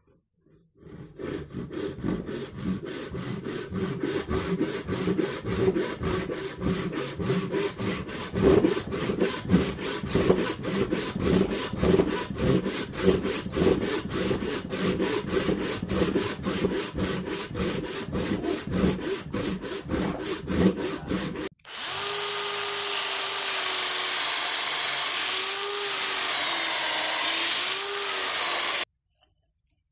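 Hand saw cutting through a green branch in quick, even back-and-forth strokes for about twenty seconds. Then a cordless drill runs steadily, its motor pitch wavering as the bit bores into the end grain of a wooden log section, and stops abruptly near the end.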